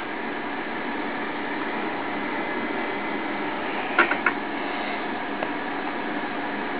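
Steady background hiss of room and machine noise, with no voice, and a few short sharp clicks about four seconds in.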